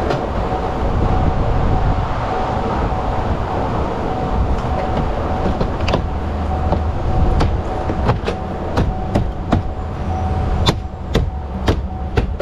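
Steady workshop rumble with a faint constant hum. From a little past halfway come sharp clicks and taps, roughly three a second, while the plastic door trim panel is handled and fitted to the door.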